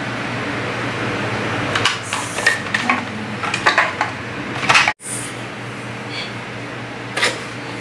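Hard plastic vacuum parts and packaging being handled: a scatter of short clicks and knocks over a steady room hum, with a sudden brief dropout about five seconds in.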